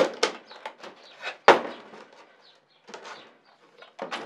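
Knocks and clatter of a water-ski boot and its binding plate being handled on a workbench as the boot is pulled off the plate. There is a sharp knock at the start, another about a second and a half in, lighter taps between them, and a short run of knocks near the end as the plate is turned over.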